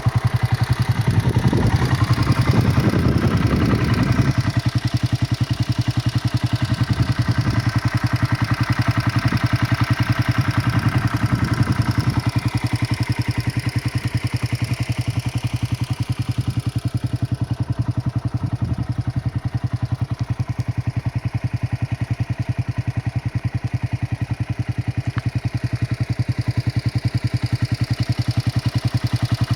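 Motorcycle engine running at fairly steady revs, with a busier, rougher stretch in the first few seconds.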